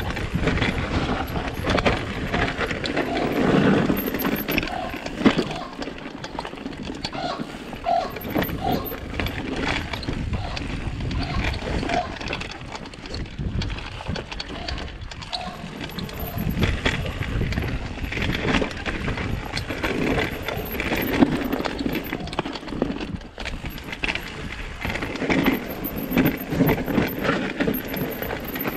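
Scott Ransom mountain bike ridden fast down a rough dirt singletrack, heard from a camera on the rider: a continuous clatter of knocks and rattles from the tyres, chain and suspension hitting roots and rocks, over a rushing hiss from the tyres on dirt. The clatter swells and eases as the trail gets rougher and smoother.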